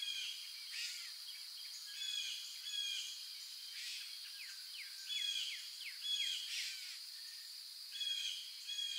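Birds chirping and calling, short repeated calls with quick falling notes coming every second or so, over a steady high-pitched drone.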